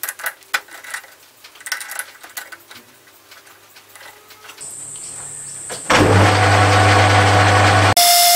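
Metal clicks and knocks as the forged crankshaft is turned round in a lathe's four-jaw chuck and the chuck key is worked. Then the metal lathe starts: a high steady whine and hum from about four and a half seconds in, and the spindle running loud from about six seconds in.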